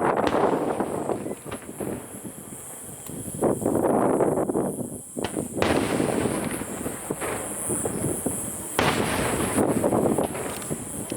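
Aerial fireworks fired in a rapid barrage: dense crackling bursts with a lull early on, then sudden loud bursts about halfway through and again near three-quarters through.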